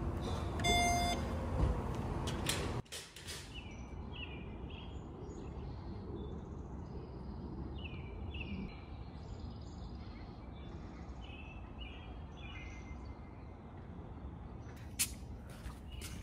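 Around a car's open boot, a short electronic beep and a couple of knocks over a low rumble; then, from about three seconds in, small birds chirping in short repeated notes over a steady outdoor background, with a few sharp clicks near the end.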